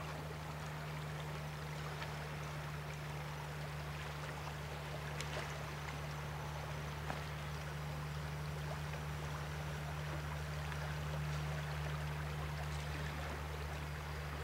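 River water rushing, a steady even hiss, with a steady low hum underneath.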